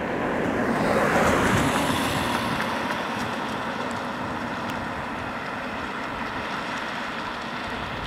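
A vehicle passing by: a swell of rushing road noise that peaks about a second in and falls in pitch, then a steady, fainter rumble.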